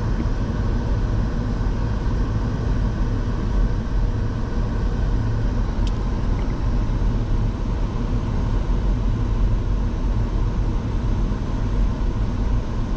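Vehicle driving along a highway: steady road and engine noise, mostly a low rumble, with a single faint click about six seconds in.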